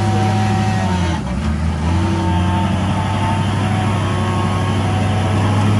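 Hummer H1's V8 engine running at low revs while the truck crawls over rocks; the engine note dips lower for about a second, shortly after the start, then settles back to a steady hum.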